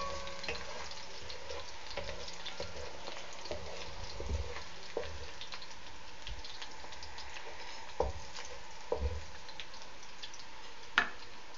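Ginger-garlic paste frying in hot oil in an aluminium wok: a steady sizzle dotted with small crackles as it browns to light gold. A wooden spatula stirs it and knocks against the pan a few times in the second half.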